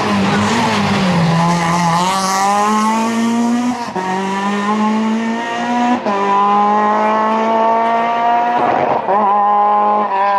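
Renault Twingo rally car's engine pulling hard away. Its note dips briefly about a second in, then climbs steadily through the gears, with short drops at the gear changes about four and six seconds in.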